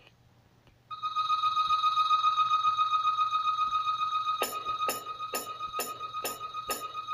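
Electronic synthesizer music: a long held note comes in about a second in, and a steady beat of sharp hits, about two a second, joins a little past halfway.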